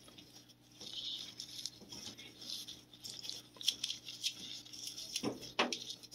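Cat chewing and tearing at a piece of chicken: a run of small wet, crackly clicks and smacks. Two louder smacks come a little after five seconds in.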